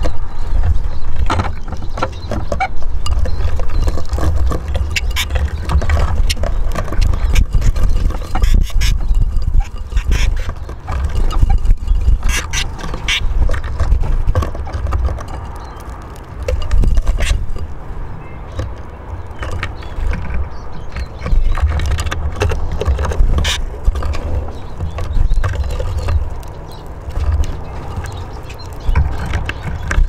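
Eurasian siskins feeding at a wooden bird table: many irregular sharp clicks and taps of beaks pecking seed and feet landing on the wood and the seed dish, over a steady low rumble.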